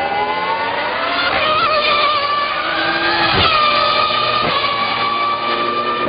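McLaren MP4 Formula 1 car's 3.0-litre V10 engine at high revs. It rises in pitch as the car accelerates, drops sharply just past halfway, then runs at a steady high pitch.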